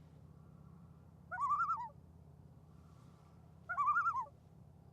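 Juvenile common loon calling twice, each a short wavering call about half a second long.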